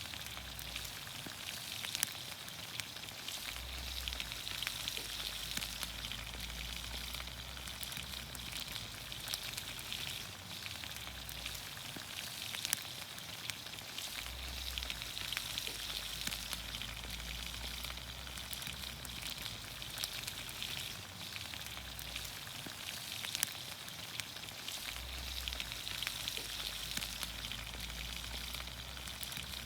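Vegetables in olive oil sizzling over a campfire: a steady hiss dotted with small crackles and pops.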